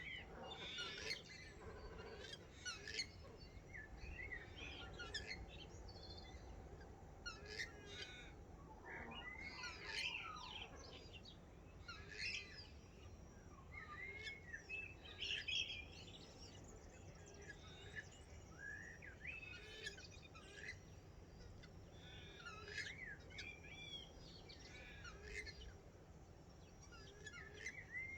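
Dawn chorus of many birds calling and singing at once: overlapping chirps and warbled phrases, one after another with no real pause.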